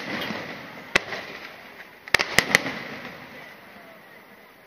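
Aerial fireworks shells bursting: one sharp bang about a second in, then a quick cluster of four bangs a little past two seconds. Each is followed by a trailing noise that dies away, growing quieter toward the end.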